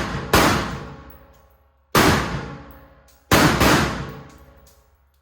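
Rifle shots from a short-barrelled 5.56 AR-15 with an LWRC upper, each sharp crack trailing off in about a second of echo: one right at the start, another about two seconds in, and a quick pair after about three seconds.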